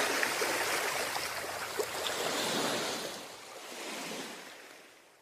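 A steady rushing noise with no tone in it, fading away over the last couple of seconds.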